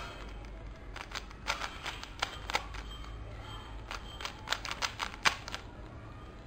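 Plastic 3x3x3 Rubik's cube being turned, its layers clicking in quick, irregular clacks that stop about five and a half seconds in.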